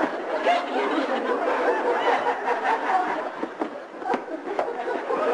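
Several people laughing together, overlapping and continuous.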